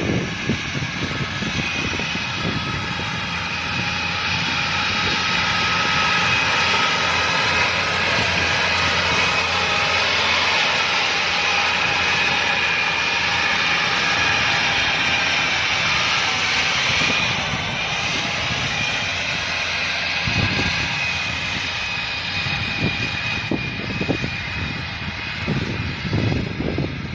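Kubota DC-105X combine harvester running at work, a steady machine drone with a high whine that swells a little through the middle and then eases.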